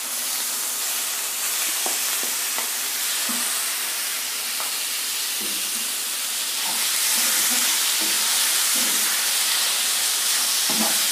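Diced raw chicken sizzling in hot oil with ginger-garlic paste in a frying pan, stirred with a wooden spatula that knocks lightly against the pan. The sizzle grows louder a little past halfway.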